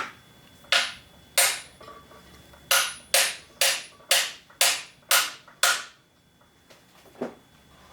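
Hammer striking a metal punch to drive a bearing into a Bernina 217 sewing machine: two sharp metallic blows, then a run of seven at about two a second, and one lighter tap near the end.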